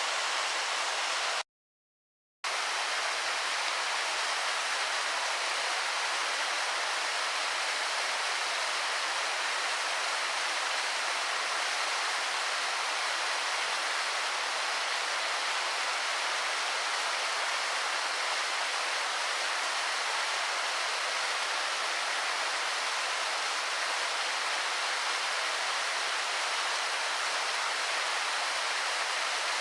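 Shichigen Falls, a waterfall, rushing steadily. The sound cuts out completely for about a second near the start.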